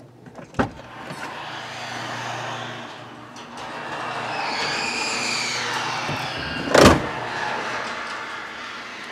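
Car and road noise heard from inside a car's cabin, swelling twice and easing off, with a sharp thump about two-thirds of the way in.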